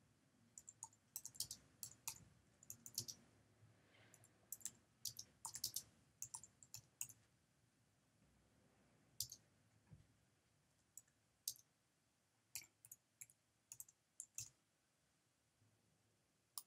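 Faint clicking of computer keyboard keys in irregular bursts of typing. The keystrokes come thickly for the first seven seconds, stop for a couple of seconds, then return as scattered single keystrokes, with one last near the end.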